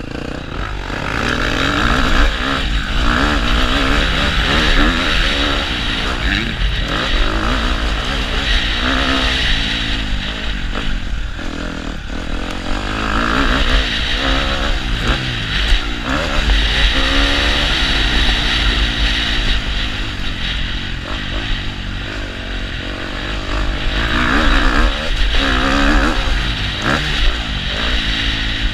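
KTM motocross bike engine being ridden hard, revving up and dropping back again and again as the rider accelerates, shifts and backs off, with a steady low rumble underneath.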